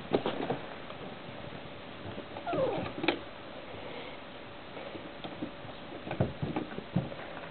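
Puppies whining and squeaking, with one short cry that slides down in pitch about two and a half seconds in, among scattered light knocks and patters.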